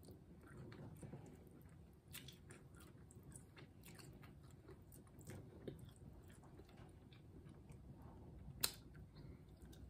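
Quiet chewing and biting of duck wing, with many small mouth clicks and one sharp click near the end.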